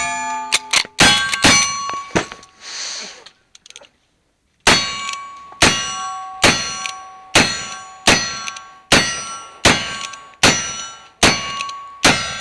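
The last few rapid shots from an Uberti 1866 Yellowboy lever-action rifle, then after a short pause ten revolver shots about 0.8 s apart from a pair of single-action revolvers. Each shot is followed by the ring of a steel target being hit.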